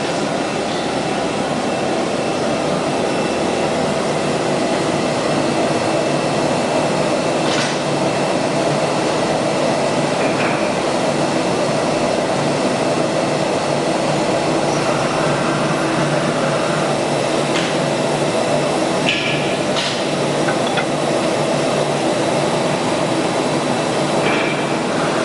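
An ATC 1325 CNC router running, a steady dense machine noise with a few faint clicks along the way.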